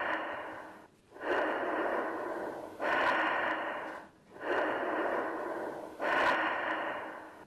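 Breathy whooshes that start suddenly and fade away, four times about a second and a half apart.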